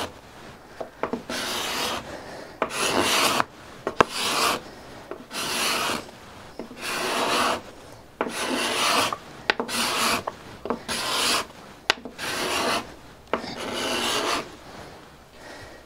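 Steel card scraper pushed across a pine board in repeated scraping strokes, about a dozen, each roughly half a second long and coming a little over once a second, cutting fine flutter shavings. A few light clicks fall between the strokes.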